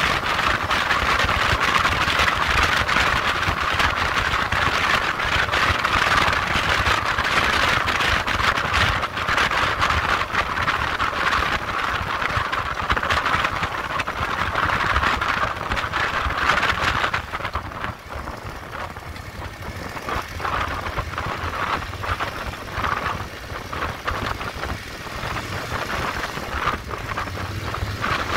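Motorcycle riding at road speed, wind rushing over the microphone with the engine running underneath. About two-thirds of the way through, the wind noise drops off suddenly as the bike slows, leaving the quieter engine note.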